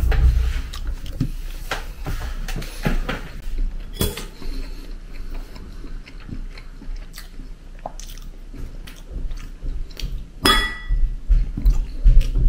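A man eating with a metal fork from a bowl: chewing, with scattered clicks of the fork on the dish. One short ringing clink comes about four seconds in and a louder one about ten seconds in.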